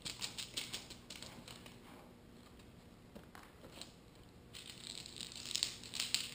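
Old metal hand tools clicking, clinking and scraping as they are handled and rummaged: a quick run of sharp clicks at the start, then clicks over a scraping rustle near the end.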